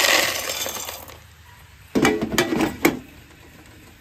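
Loose shelled corn kernels rattling in a short hiss that fades within about a second, then a few sharp clinks of kernels about two seconds in.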